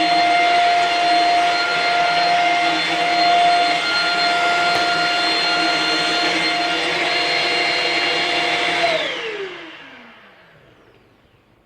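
Shark Rocket stick vacuum running steadily with a high motor whine, then switched off about nine seconds in, the motor winding down in a falling whine.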